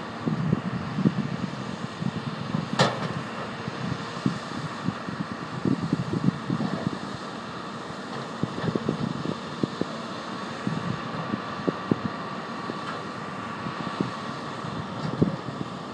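Tracked hydraulic excavator working boulders into a riprap wall, heard from a distance: a steady engine hum with a faint whine, mixed with wind buffeting the microphone in irregular low thumps. A single sharp clack about three seconds in.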